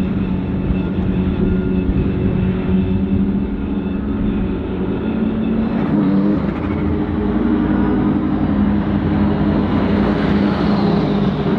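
BMW M4 GT3 race car's twin-turbo straight-six engine running at a fairly steady pitch, stepping up slightly about halfway, with a rushing hiss swelling near the end.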